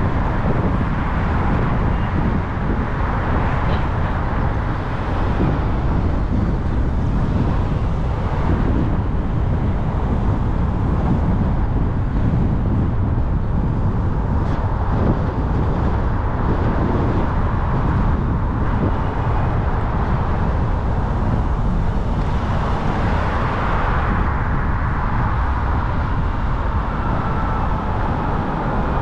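Steady road noise of a car driving in city traffic: a continuous low rumble of engine and tyres with a hiss over it, a little brighter for a couple of seconds about two-thirds of the way through.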